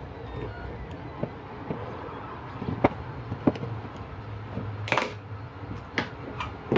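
Plastic housing of a smart plug being pried apart along its seam with a knife: a few sharp snapping clicks as the plastic snap clips give way, the loudest about five seconds in.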